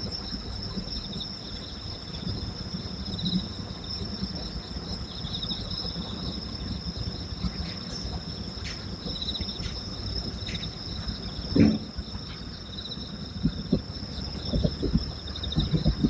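Night insects chirping steadily, a high trill with a pulsing chirp just under it, over distant fireworks bursting as dull low thumps. One thump about two-thirds of the way through is the loudest, and a quick run of them comes near the end.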